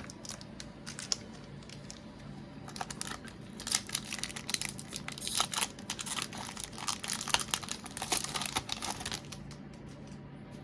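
Foil wrapper of a Pokémon booster pack crinkling and tearing as it is opened, a dense run of sharp crackles lasting several seconds.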